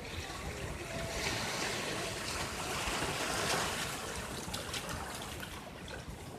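Ocean surf: a wave breaks and washes up the beach as a rushing hiss that swells to a peak about three seconds in, then eases off.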